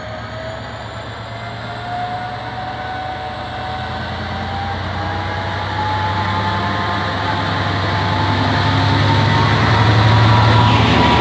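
HŽPP series 2044 diesel locomotive approaching on the adjacent track and drawing alongside: a steady engine drone with a faint whine that edges up in pitch, growing louder throughout.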